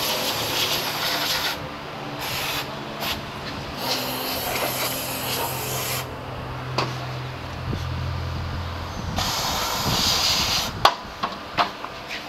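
Aerosol spray can spraying in several bursts of hiss, the longest a couple of seconds, with a few sharp clicks and knocks near the end.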